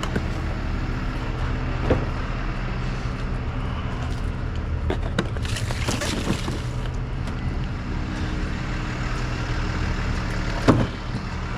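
A motor vehicle engine idling steadily, with a few knocks, the loudest near the end, and a short hiss about six seconds in.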